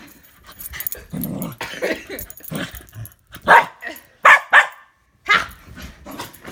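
Bernedoodle barking during rough play, with four short, loud barks about halfway through.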